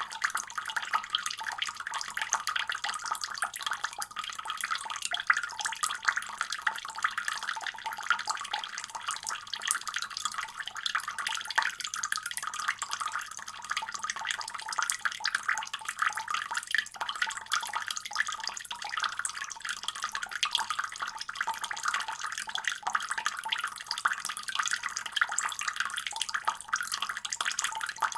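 Water running steadily from a faucet: a continuous splashing hiss that stays even throughout.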